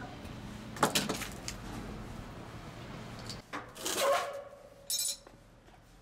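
Metal clinks and knocks from a screwdriver working on the sheet-metal casing of an LG air-conditioner outdoor unit. There are sharp clanks about a second in, a scraping rattle around four seconds in, and a short high rattle near five seconds.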